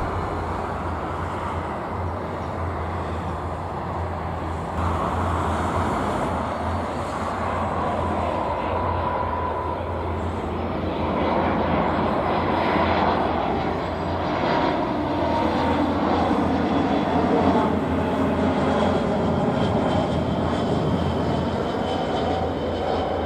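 Airbus A319-131 airliner's twin IAE V2500 turbofan engines on final approach: a steady jet rumble with a faint whine, growing louder as the aircraft comes closer midway through.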